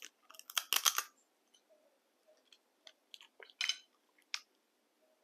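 Crab shell crunching and cracking during eating: a quick cluster of sharp cracks about half a second in, then scattered smaller clicks and a short crunch a few seconds later.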